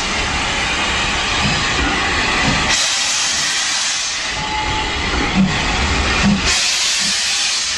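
Steam-hauled train of vintage wooden-bodied coaches pulling out, the coaches rolling past close by behind an SR U Class 2-6-0 steam locomotive. A louder hiss of steam swells twice, about three seconds in and again near the end.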